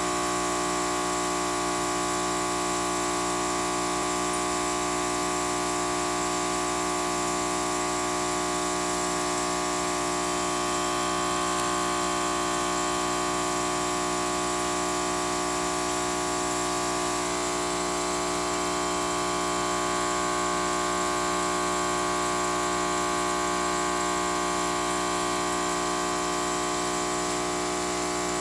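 Aquarium pump running with a steady, unchanging hum made of several held tones.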